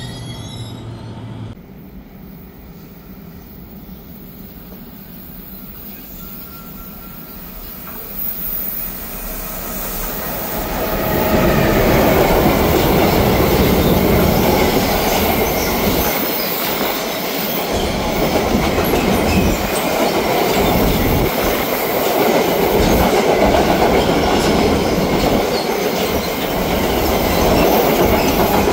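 Freight train passing on the track: the noise grows steadily over the first ten seconds or so as it approaches, then the wagons roll by with a loud, steady rumble and clatter.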